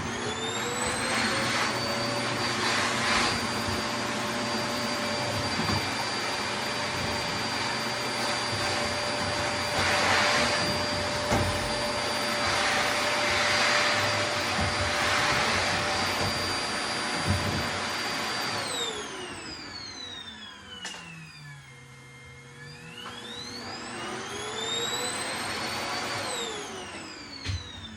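Vacuum cleaner motor running with a steady high whine after spinning up at the start. About two-thirds of the way through it winds down, then spins back up briefly and winds down again near the end.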